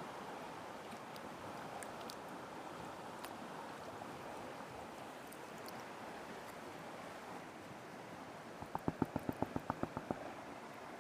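Creek water running steadily. Near the end comes a quick run of about a dozen sharp knocks, roughly eight a second.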